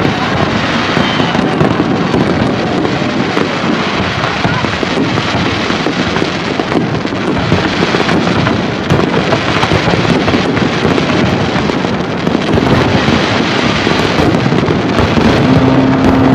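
Fireworks display: aerial shells bursting and crackling in a dense, continuous barrage of bangs. A steady low hum starts near the end.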